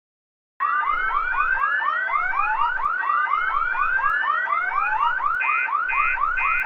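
School fire alarm sounding, starting about half a second in: a fast electronic whoop repeating about five times a second over a slower rising sweep that restarts every couple of seconds. Near the end a steady beep joins in, about twice a second.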